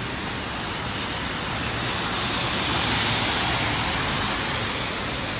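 Heavy rain falling, a steady dense hiss.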